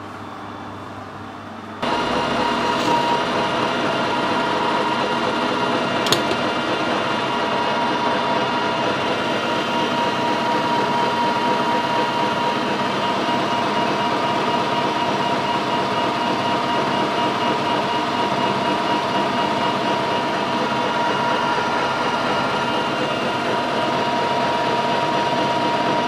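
Metal lathe starting up about two seconds in, then running steadily while the tool turns a small ring, a constant whine from the motor and gearing over the cutting noise, with one sharp click partway through.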